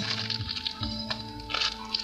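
Background music, with crackling and rustling from a taped-up plastic package being pulled open.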